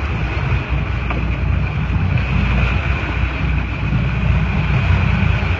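Fishing boat's engine running steadily, a low rumble with wind noise on the microphone.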